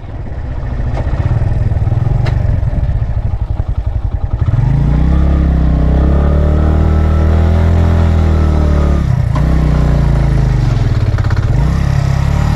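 Motorcycle engine pulling through deep sand, its note rising and falling as the throttle is worked. The revs drop briefly twice, about nine and twelve seconds in, then climb again. The first few seconds are rougher and noisier before the engine note comes through clearly.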